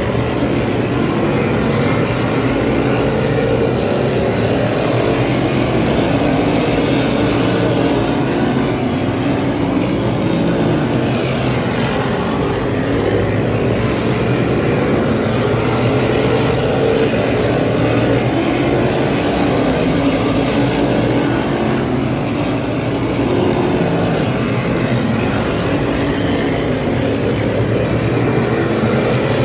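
A pack of modified race cars' V8 engines running hard around an oval, a steady loud drone whose pitch sweeps up and down as the cars come through the turns and down the straights.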